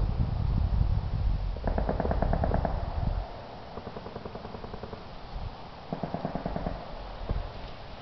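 Distant machine-gun fire in rapid bursts, about ten rounds a second: a burst of about a second roughly two seconds in, and a shorter burst about six seconds in. A low rumble sits under the first three seconds, then stops.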